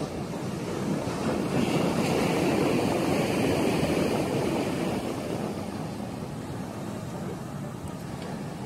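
Ocean surf breaking and washing up a pebbly beach, swelling to its loudest a couple of seconds in and then easing off.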